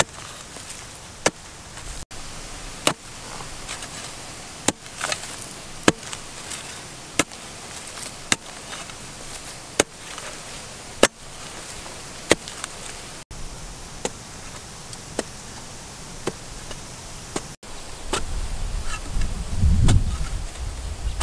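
Small metal hand hoe chopping into hard, dry soil, one sharp strike about every second or so as a hole is dug. A low rumble comes in near the end.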